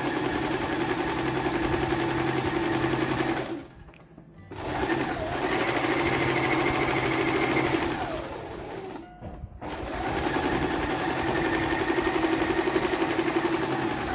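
Electric household sewing machine stitching through two layers of cotton cloth, in three runs of steady motor hum with two short stops, about four and nine seconds in; it winds down before the second stop.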